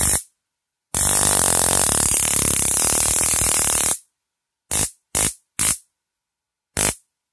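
High-voltage electric arc buzzing across the electrode tips of a homemade stun gun made from a boost module and a battery: one brief zap, a continuous zap of about three seconds, then four short zaps in quick succession.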